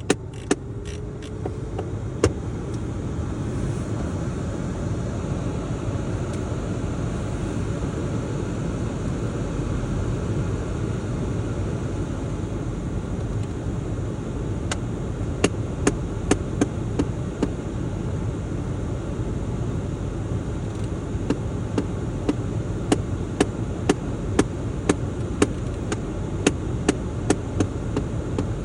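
Sharp knocking from a VW Golf 7's heating system over a steady background rush. The knocks are irregular: a few at the start, then frequent, about one to two a second, through the second half. It is a knocking that goes away when the heat is turned down.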